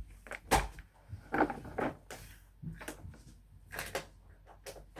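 A scattered series of light knocks, clicks and rustles from objects being handled, about a dozen over the few seconds. No vacuum motor is running.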